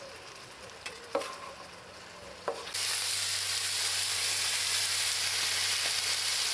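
Sausages and vegetables frying in a wide pan over a gas burner, stirred with a wooden spatula that gives a few light taps on the pan. A little under three seconds in, the sizzle jumps to a loud steady hiss as canned tomatoes are poured onto the hot pan.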